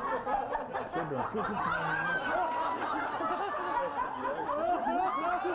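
Audience laughing and chuckling, many voices overlapping.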